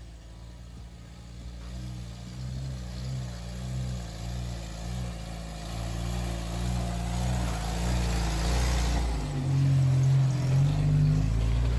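Jeep Wrangler engine pulling up a dirt trail and passing close by, growing steadily louder as it approaches. Its pitch rises and falls with the throttle.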